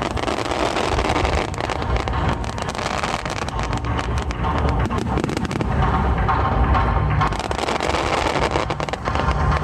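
Fireworks bursting and crackling many times in quick succession, with low booms and a dense rattle of small cracks, over music playing along with the show.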